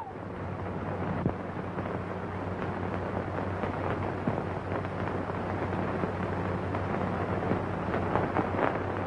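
Steady hiss and rumble with a low constant hum: the background noise of an old 1930s optical film soundtrack, with no dialogue or music.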